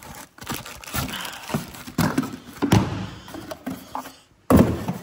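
Cardboard packaging being handled: irregular knocks, scrapes and rustles of cardboard pieces, the loudest knock coming after a short pause near the end.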